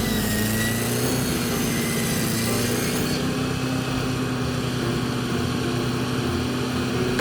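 Engine of a 1971 Chevy running steadily at a constant speed while it drives a circular sawmill. A high hiss over it drops away about three seconds in.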